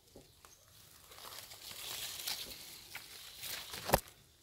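Leaves and twigs rustling and crackling, building up about a second in, with one sharp snap near the end.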